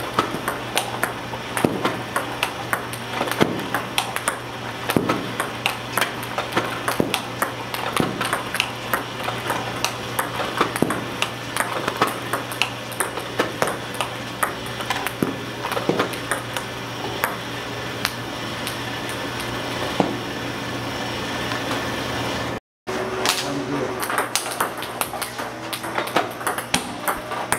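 Table-tennis balls fed by a Butterfly Amicus Expert Plus robot, bouncing on the table and struck with a paddle in repeated topspin loops: a steady stream of sharp clicks, a few a second, over a low hum. The sound drops out briefly near the end, then the clicking resumes.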